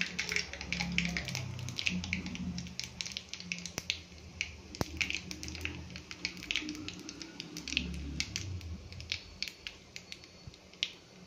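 Mustard seeds and split dals crackling and popping in hot oil in a small tempering pan: scattered sharp pops, thinning out towards the end, over a low steady hum.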